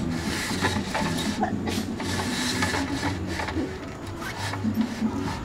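Metal roof-tent ladder being handled and fitted against the side of a camper van: rubbing and scraping with scattered knocks and clicks, over a steady low hum.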